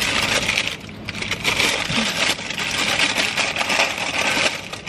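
Takeout food packaging being rustled and crinkled close by: a dense run of crackling with many small clicks that stops shortly before the end.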